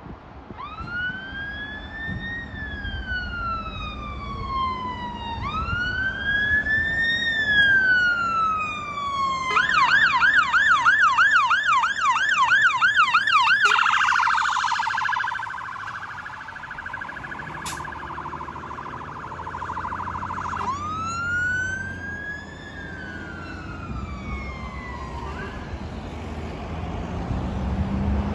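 Scania fire engine's electronic siren passing close. It first sweeps slowly up and down, switches to a fast, loud warble, then to a steady buzzing tone, then back to the slow up-and-down sweep, which ends a few seconds before the close, over traffic noise.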